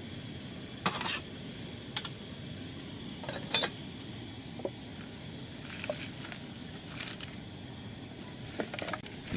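Scattered light clicks and knocks of small objects being handled, the sharpest about a second in and about three and a half seconds in, over a steady low hum.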